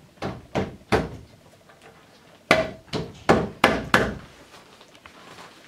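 A wooden dowel plug being knocked into a drilled hole in a block of wood. Three sharp knocks come in quick succession, then after a pause of about a second and a half, five more.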